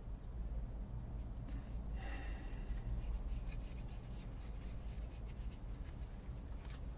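Soft rubbing and rustling of plant fiber and animal hair as hands twist them into yarn, over a steady low rumble. A brief faint tone comes about two seconds in.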